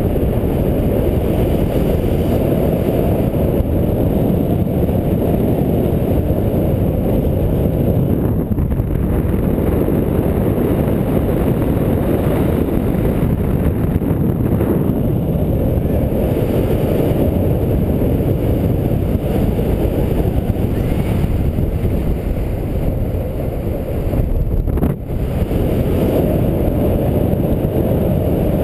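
Loud, steady rumble of airflow buffeting a camera microphone on a paraglider in flight.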